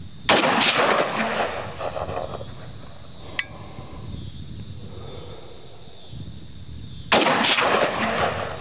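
Two shots from a 5.56 AR-15-style rifle firing Winchester 55-grain rounds, about seven seconds apart. Each report trails off over about a second and a half. A short sharp click falls between them.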